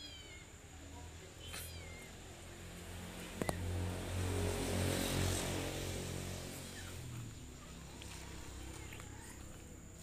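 Black-capped lory giving short, squeaky calls that fall in pitch, once at the start and again about a second and a half in. After a sharp click, a low droning hum swells and fades over the middle few seconds and is the loudest sound.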